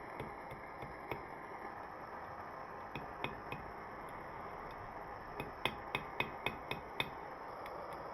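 Light hammer taps on a small piece of metal, scattered at first, then a quick run of about seven sharper strikes near the end, over a steady rushing noise.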